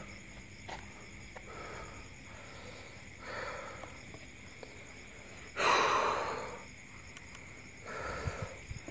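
A man breathing heavily, about four breaths a couple of seconds apart. The strongest, longest exhale comes a little past halfway.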